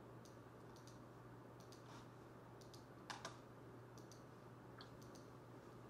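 Faint, scattered typing on a computer keyboard, with a couple of louder key clicks about three seconds in, over a low steady hum.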